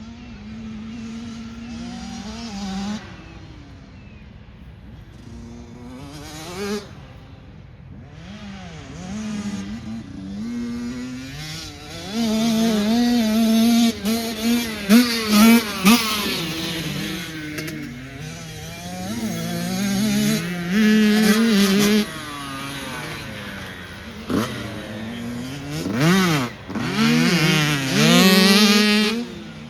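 A Mini race car's engine at full throttle, revving up and dropping back again and again as it works through the gears. It is loudest in the middle and again near the end.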